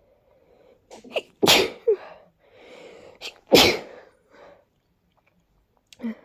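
A congested person sneezing twice, loud and unstifled, about two seconds apart, with quick catching breaths before the first sneeze and a breathy inhale between the two.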